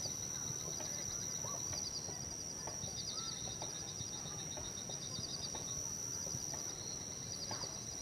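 Forest ambience of animal calls: a steady high-pitched drone with short runs of rapid chirps repeating every second or so, and faint scattered calls beneath.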